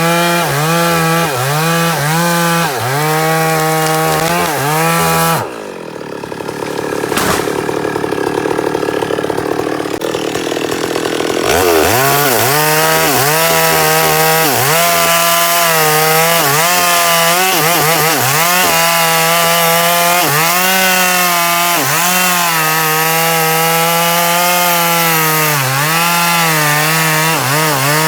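Chainsaw cutting wood, the engine pitch dipping and recovering again and again as the chain bites and bogs under load. For several seconds about a fifth of the way in, it drops to a quieter, duller running before it cuts again.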